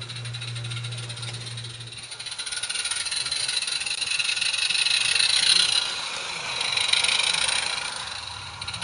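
Small 16mm-scale live-steam garden locomotive running past with a fast chuffing hiss from its exhaust. The hiss grows louder as the engine nears, peaks about five and seven seconds in, then fades. A low steady hum dies away in the first two seconds.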